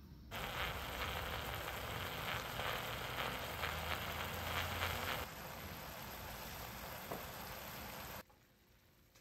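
Sukiyaki simmering and sizzling in a cast-iron pot on a tabletop burner: a steady hiss. It turns a little quieter about five seconds in and cuts off near the end.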